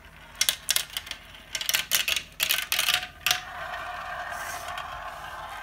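Two glass marbles clattering down a plastic marble run: a quick string of sharp clicks and clacks against the track pieces, then from about three and a half seconds in a steady rolling whir as they circle around the plastic funnel bowl.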